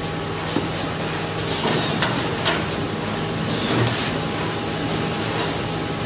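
Tissue paper bundle packing machine running with a steady mechanical hum, broken by several short hisses, the longest about four seconds in.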